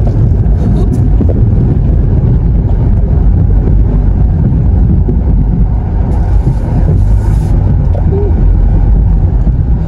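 Car driving slowly through a flooded gravel lot: a steady low rumble of engine and tyres, with a brief hiss about six seconds in.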